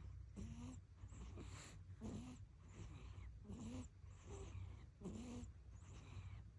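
Newborn baby snoring softly in sleep: a breathy in-and-out with a small pitched grunt on each breath, about every one and a half seconds.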